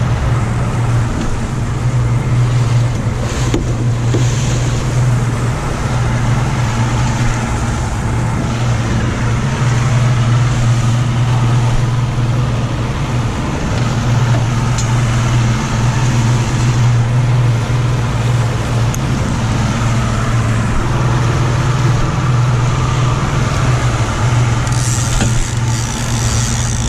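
150 hp outboard motor running steadily with the boat under way at trolling speed, a constant low drone, with the wake water rushing and churning behind the transom.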